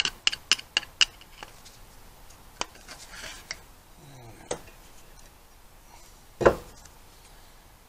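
Steel screwdriver shaft clicking and scraping against a car's rear wheel bearing and grease seal inside the hub knuckle. There is a quick run of sharp metal clicks in the first second, a few single clicks after, and one louder knock near the end.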